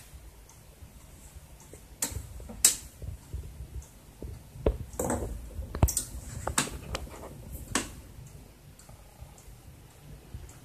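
Relays on an AEG Öko Lavamat 60600 washing machine's control board clicking sharply at irregular intervals over a faint low hum. This is the motor relay and water valve circuits switching as the program runs, a sign the board works normally.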